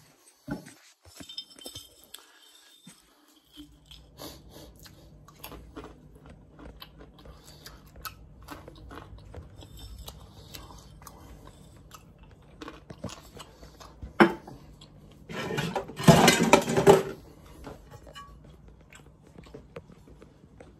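Scattered clinks and knocks of dishes and a glass jar being handled in a kitchen, over a low steady hum that sets in a few seconds in. A louder rush of noise lasts about a second and a half, some sixteen seconds in.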